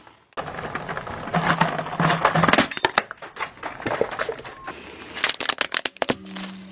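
Car tyre rolling over the broken pieces of a plastic toy cement mixer truck: dense crackling and snapping of plastic, with a run of loud sharp cracks about five seconds in. A low steady hum comes in near the end.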